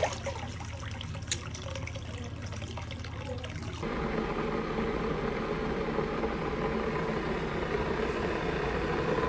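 Hot-spring water trickling and lapping in an outdoor rock bath, with a couple of sharp little knocks. A little under four seconds in, it changes abruptly to a louder, steady low hum and hiss of room noise.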